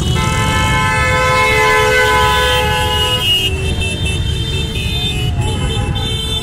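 A column of motorcycles rumbling past at low speed, their engines blending into one low drone. A horn is held for about the first three seconds, then a second, higher-pitched horn sounds until near the end.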